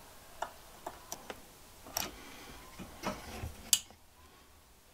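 Light, irregular clicks and taps, about seven over a few seconds with the loudest near the end, from multimeter test probes and their leads being handled against a lamp's wiring.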